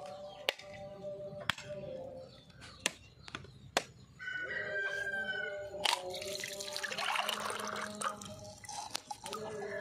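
A blade knocking sharply into a husked coconut four times to crack it open. A rooster crows about four seconds in. Coconut water then pours and splashes into a steel tumbler.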